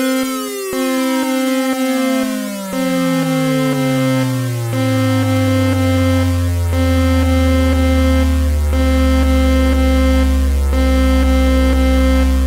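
Synthesized emergency-alert tones: a steady pitched tone broken by a short gap about every two seconds, under a second tone that slides steadily downward and settles into a loud, deep drone.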